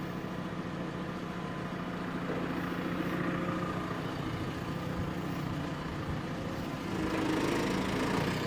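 Large diesel engine of heavy equipment running steadily, getting a little louder about seven seconds in.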